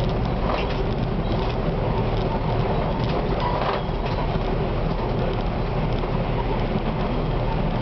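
Tram running at top speed, heard from the driver's cab: a steady rumble of steel wheels on rail and traction gear. A few short clicks and a brief squeal about three and a half seconds in.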